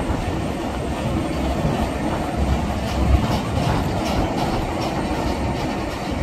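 Boeing 787 taxiing, its jet engines at low taxi power giving a steady rumbling noise.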